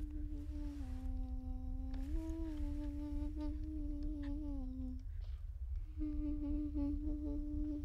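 A person humming a slow, simple tune in long held notes that step between a few nearby pitches, breaking off for about a second midway and then starting again. A steady low rumble sits underneath.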